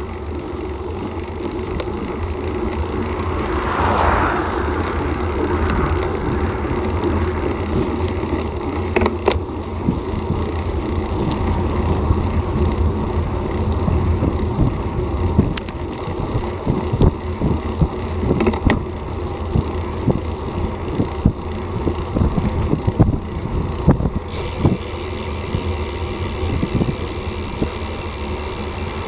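Wind and road noise on a bicycle-mounted camera's microphone while riding at about 12 mph: a steady low rumble with scattered clicks and knocks as the bike rolls over the road surface.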